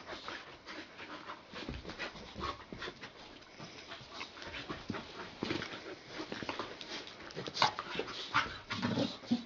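Two retriever puppies play-wrestling: irregular scuffling and panting breaths, with short sharper sounds, the loudest about three quarters of the way through.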